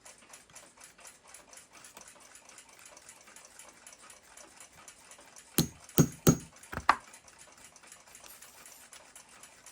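Sharp metallic clicks, four or five in quick succession about five and a half to seven seconds in, as a brass bushing is pressed home into a clock movement plate, over a faint steady ticking of several ticks a second.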